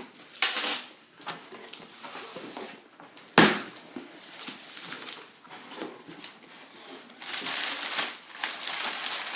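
Cardboard shipping box being unpacked by hand: packing material and cardboard crumpling and rustling, with one sharp knock about three and a half seconds in and heavier rustling near the end.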